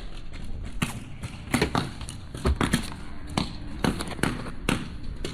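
Paintball markers firing, about a dozen sharp pops at uneven spacing, some in quick runs of two or three shots. Wind buffets the microphone underneath.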